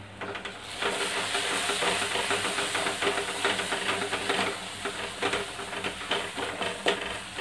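Wooden spatula stirring a thick mint-coriander chutney paste frying in oil in an aluminium kadai: a steady sizzling hiss with irregular scrapes and light knocks of the spatula against the pan.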